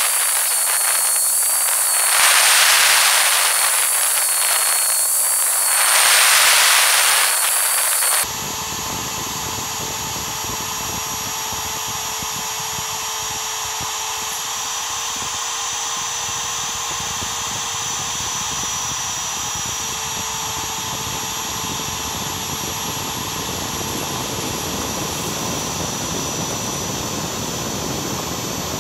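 Router spindle of a Mostly Printed CNC milling steel plate with a two-flute up-cut end mill. For about the first eight seconds the sound is sped up tenfold, a high hiss that swells twice; then it changes abruptly to the real-speed steady whine of the spindle cutting the steel.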